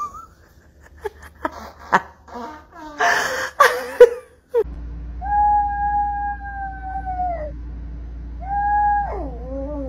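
Small dog howling: two long, steady howls, the second shorter and sliding down in pitch at its end. Before them comes a run of short, uneven vocal sounds, the loudest about four seconds in.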